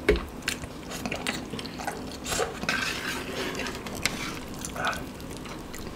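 Close-miked eating: Samyang noodles slurped and chewed, with many light clicks of chopsticks against a metal tray.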